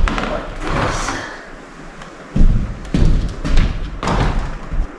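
Metal transmission parts being handled on a bench: a series of clunks and knocks, the loudest about two and a half seconds in.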